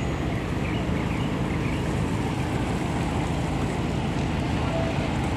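Small wooden harbour ferry's engine running at the pier with a steady low rumble, with wind on the microphone.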